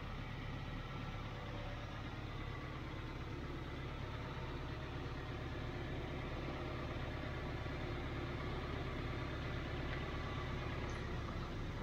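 Toyota MR2 Roadster's mid-mounted 1.8-litre four-cylinder engine idling steadily as it warms up after a cold start.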